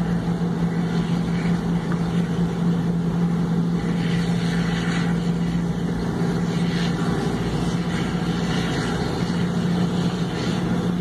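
Engine and tyre noise heard from inside a vehicle's cabin while driving at steady speed on a highway: a constant low hum over a steady rush of road noise.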